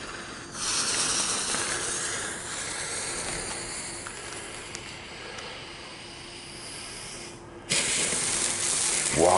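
A small F1 ground fountain, Weco's Red Green Fontaine, lit by its fuse. First comes a quieter, steady fuse hiss. About three-quarters of the way through the fountain catches, and a sudden, louder spraying hiss of sparks carries on from there.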